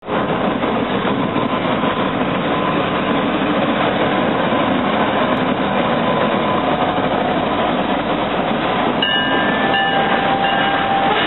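A train running close by on the tracks, a loud steady rumble and rattle of wheels on rail. About nine seconds in, several steady high tones join it, as of squealing wheels or brakes.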